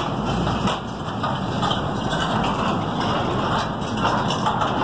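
Empty steel cane wagons of a narrow-gauge sugar-mill train rattling and clanking steadily as they roll along the rails.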